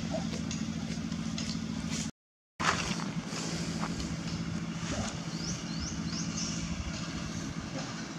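A steady low hum from a running motor, broken by a short dropout about two seconds in. A few short, high, rising chirps sound over it in the second half.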